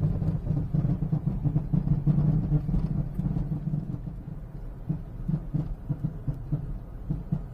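Car driving with a very loud, uneven rumbling clunk from the chassis. It is the suspension noise that the mechanic judges most likely to be worn shock absorbers.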